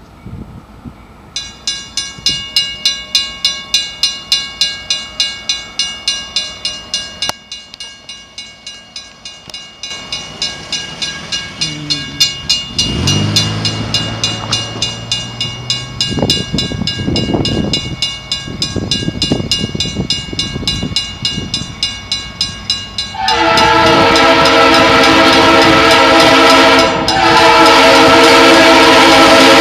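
Grade-crossing warning bell ringing in a fast, even rhythm, then an approaching CSX diesel locomotive's air horn sounding two long, loud blasts near the end.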